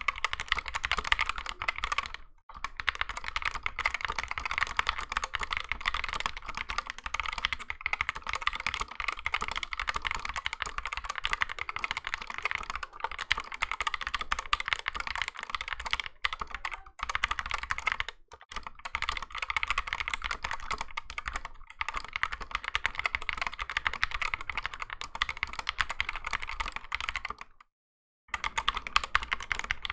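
Fast, continuous typing on a 60% mechanical keyboard fitted with Gateron optical switches, with dense overlapping keystroke clicks. The typing breaks off briefly a few times, the longest break near the end.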